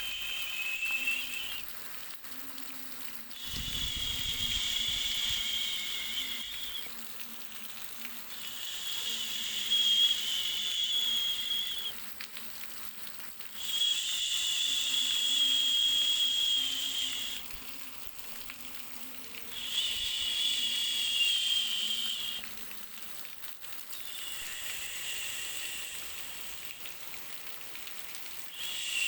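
Steady background hiss with a high-pitched whistling buzz that swells up in repeated bursts of two to three seconds, about six times, with short quieter gaps between.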